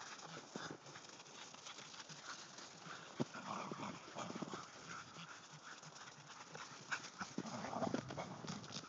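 Two dogs chasing each other through snow, their paws crunching, with louder stretches of scuffling dog noise about three seconds in and again near the end.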